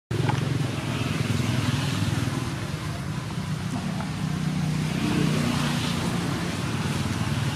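An engine running steadily nearby: a continuous low hum with a light hiss above it.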